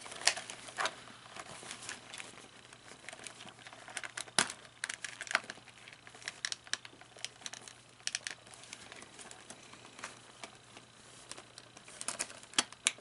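Hard plastic animatronic parts and pins being handled and fitted together: irregular small clicks, taps and rattles.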